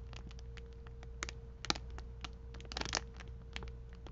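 Clear plastic packaging bag handled in the fingers, giving soft scattered crinkles and crackles, a little louder about halfway through and again near three seconds in, over a faint steady hum.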